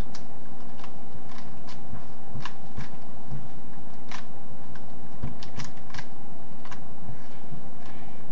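A Rubik's Cube being turned quickly by hand: irregular sharp plastic clicks and snaps as its layers rotate, several a second.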